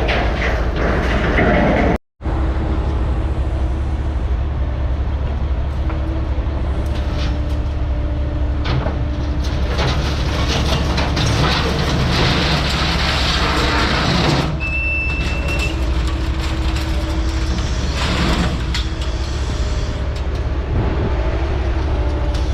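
Scrapyard grapple claw machine's diesel engine running with a steady low rumble, while scrap metal clanks and scrapes as it is handled. The sound cuts out briefly about two seconds in.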